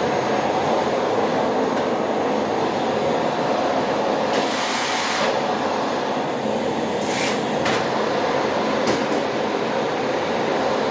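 Household vacuum cleaner running steadily, with a brief higher hiss about four seconds in and again about seven seconds in.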